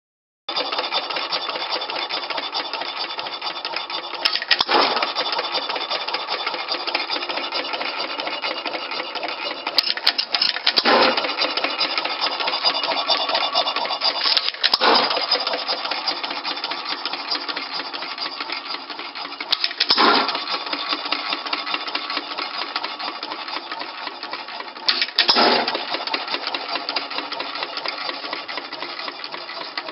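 1 3/4 hp Economy model S hit-and-miss engine running with steady mechanical clatter as it coasts, and a louder burst every five or six seconds when it fires.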